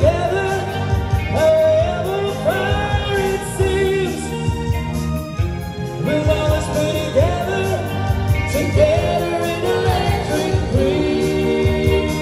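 Live band playing a pop song with singing: vocals over keyboard, electric guitars and bass.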